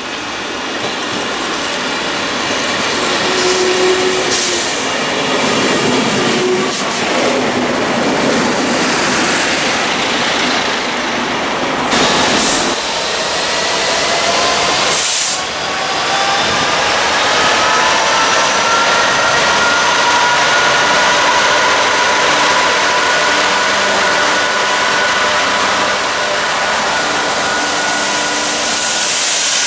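A train passing close by, its running noise growing louder over the first few seconds. Two short sharp cracks come near the middle, and in the second half several steady tones glide slowly in pitch over the rumble.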